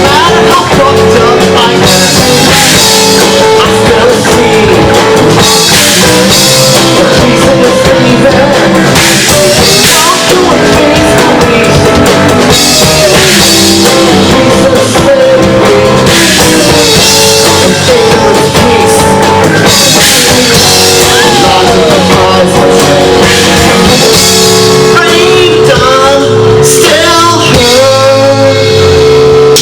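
Live rock trio of guitar, bass guitar and drum kit playing loud and steady, with the guitar bending notes near the end.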